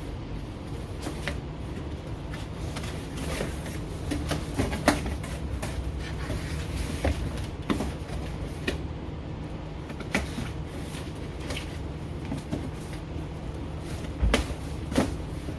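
Cardboard shelf display being put together by hand: a shelf pushed into the shell and its flaps tucked under, giving scattered scrapes, taps and rustles over a steady low hum.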